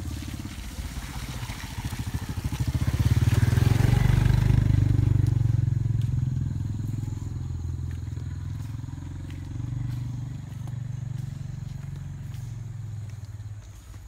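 Motorbike riding past: its engine grows louder as it approaches, is loudest about four seconds in, then slowly fades as it moves away.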